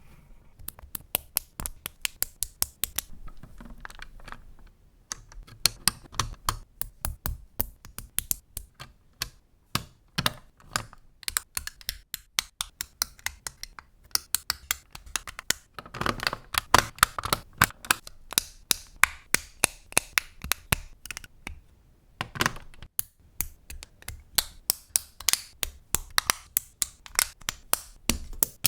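Mould King plastic building bricks, pins and axles being handled and pressed together, giving irregular sharp plastic clicks and taps several a second, with a denser run of clicking part-way through.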